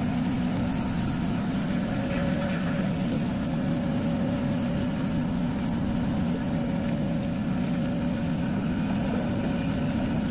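Steady, unchanging engine drone of a moving vehicle heard from aboard, low and constant with a faint higher hum over it.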